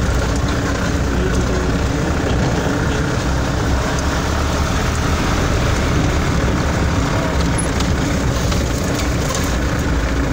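Steady engine and tyre noise of a vehicle driving on a gravel dirt road, heard from inside the cab as a continuous low rumble.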